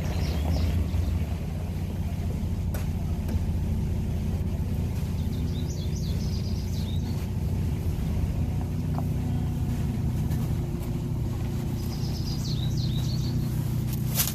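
A vehicle engine idling steadily with a low, even hum. Birds chirp briefly twice, in the middle and near the end.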